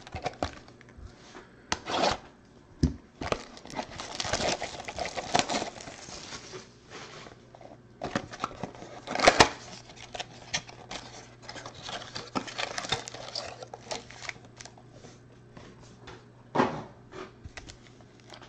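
Hands tearing open a cardboard trading-card mini box and handling the foil-wrapped card packs inside: irregular rustling, tearing and scraping, with a few sharp snaps and taps, the loudest about nine seconds in.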